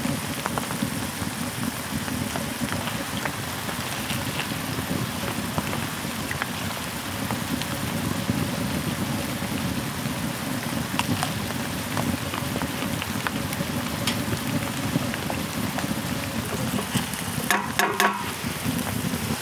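Heavy rain falling steadily, with scattered small drop clicks. A few sharp knocks come close together near the end.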